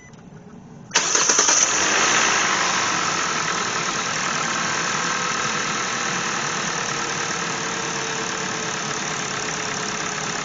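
2016 Hyundai Elantra's DOHC 16-valve four-cylinder engine starting about a second in, catching quickly and settling into a steady idle that eases down a little. It runs smoothly with a new ignition coil and spark plug on cylinder #2, fitted to cure a misfire: "runs like a top".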